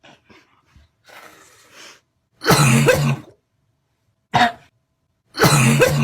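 A person coughing: a faint breath in, then a loud, rough cough, a short sharp one, and another loud, rough cough at the end.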